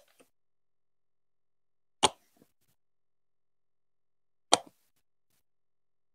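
Duplo-style plastic building blocks being set in place, two sharp plastic clicks about two and a half seconds apart, each followed by a faint smaller tick.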